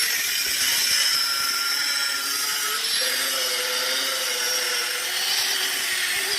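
Angle grinder running under load against a steel pipe: a steady, loud grinding hiss with a motor whine that wavers in pitch, which starts to wind down right at the end.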